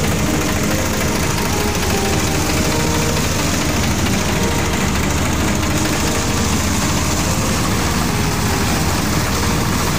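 Escort tractor's diesel engine running steadily close by, a dense, even engine noise with no change in speed.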